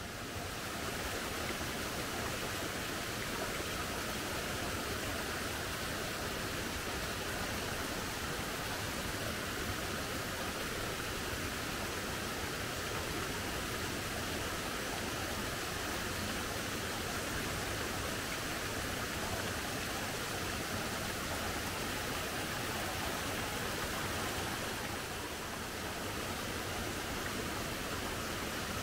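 Rushing river water: a steady, unbroken hiss.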